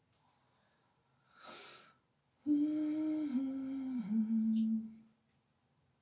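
A woman humming a few notes for about two and a half seconds, the tune stepping down in pitch, after a short soft hiss of breath.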